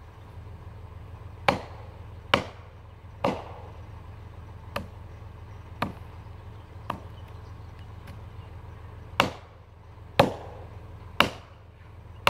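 About ten sharp, ringing blows struck at the base of a back-leaning messmate tree during felling, roughly a second apart with a longer gap midway; the strongest come near the start and in the last few seconds.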